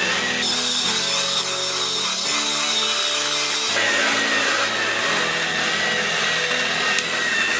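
Small electric motors and plastic gears of Plarail toy trains whirring with a high, wavering whine as they run on plastic track, over background music.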